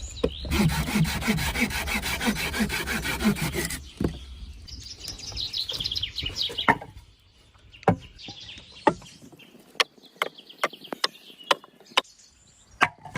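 Hand saw cutting wood with rapid rasping strokes, about three a second, for the first four seconds. Then come lighter, quicker scraping strokes, and after that a run of scattered sharp clicks and knocks.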